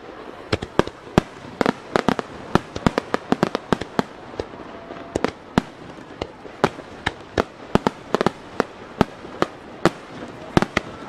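Aerial firework shells bursting in a rapid, irregular barrage of sharp bangs, several a second.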